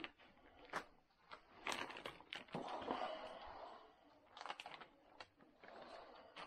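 Clear plastic sheeting crinkling and rustling under gloved hands as a tube is rolled over a resin-wetted fibreglass patch liner sealed inside it, with scattered sharp ticks and clicks.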